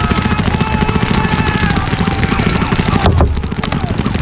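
Many paintball markers firing in rapid, overlapping volleys, with players shouting over them, and one loud bang about three seconds in.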